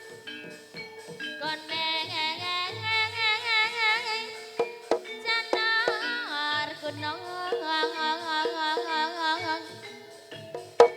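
Javanese jaranan dance music: a lead melody with heavy vibrato over held ringing tones and low hand-drum strokes. The melody comes in about a second and a half in and fades near the end.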